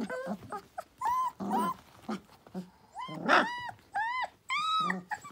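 Three-week-old puppies yipping and whining, a string of short high calls that each rise and fall in pitch, mixed with low puppy growls.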